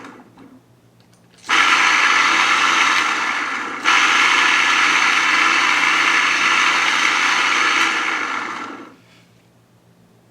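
Mazzer Mini coffee grinder's motor running, freshly freed after being jammed and now spinning. It starts about a second and a half in, cuts out for an instant near four seconds and comes straight back, then winds down near nine seconds.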